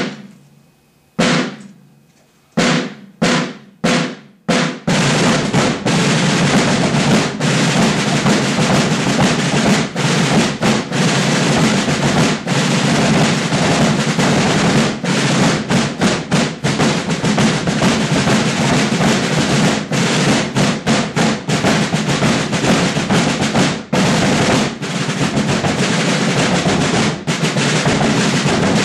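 Rudimental drum line of rope-tension snare drums and bass drums playing together. A few separate strokes, coming faster, lead into continuous drumming with rolls about five seconds in.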